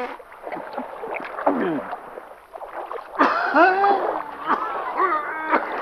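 Cartoon water sound effects, splashing and gurgling as a man drinks from and climbs out of a pool; about three seconds in, pitched sounds that bend up and down in pitch come in over it.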